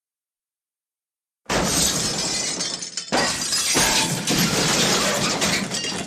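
Car crash: a sudden crash with glass shattering about a second and a half in, then a second crash of breaking glass and debris that runs for about three seconds.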